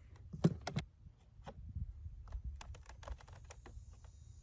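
Scattered light clicks and taps of small screws and plastic door-trim parts being handled and fitted, the sharpest cluster about half a second in.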